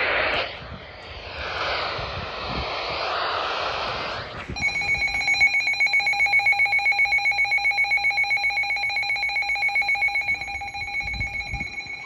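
Handheld NOAA weather radio hissing with static, then about four and a half seconds in its alert alarm starts: a shrill, rapid beeping of about five beeps a second, signalling an incoming severe thunderstorm warning.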